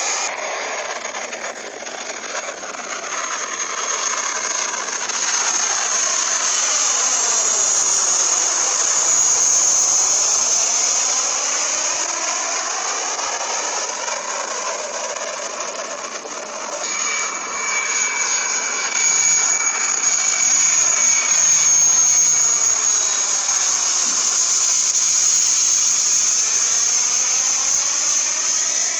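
Jet aircraft engine noise, a loud steady rushing sound with a high whine. Its tone sweeps repeatedly up and down as the aircraft passes, and the sound changes character about 17 seconds in.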